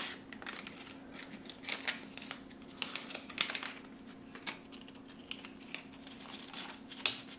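Light, irregular clicks and small crinkles from a plastic test-kit tube and its packaging being handled and worked open, with a sharper click near the end.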